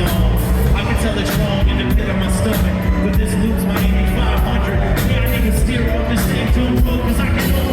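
Live rock band playing: drums hitting steadily over heavy bass and guitars, with singing.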